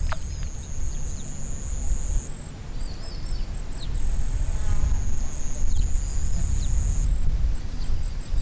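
An insect trilling in a steady high buzz that breaks off and starts again, with scattered short bird chirps. A low fluttering rumble, wind buffeting the microphone, runs underneath.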